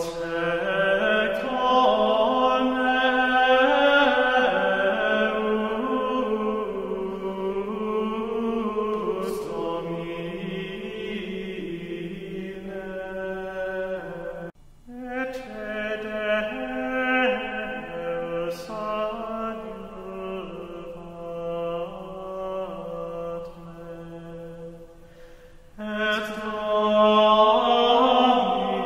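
Prayer chanted in Latin, sung in long held phrases, with a short break about halfway through and a quieter stretch just before the last phrase.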